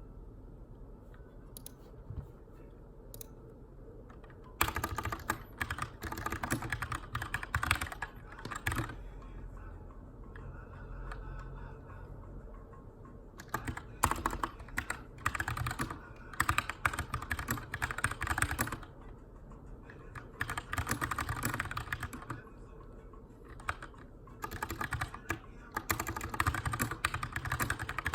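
Typing on a Keychron K2 aluminium mechanical keyboard with brown switches: a few scattered keystrokes at first, then several bursts of rapid key clacking separated by short pauses.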